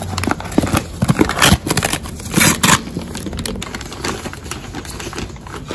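Kitchen shears snipping through the top of a paper bag and the bag packaging crinkling and rustling as it is cut and pulled open. The crackling comes thick in the first three seconds, loudest about two and a half seconds in, then settles to quieter rustling.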